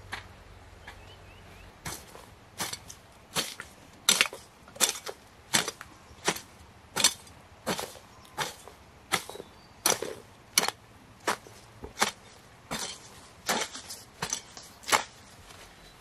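A long run of sharp knocks in an even rhythm, about one every 0.7 seconds, starting about two seconds in and stopping shortly before the end.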